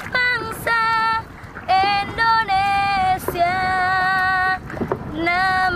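A woman singing solo without accompaniment, holding long, steady notes with short breaks between them, with some wind on the microphone.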